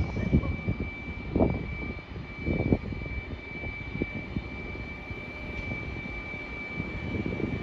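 GBRf Class 73 locomotives running at low speed as they approach with a test train. There is a steady low rumble with irregular low surges, and a thin, high steady whine that holds throughout.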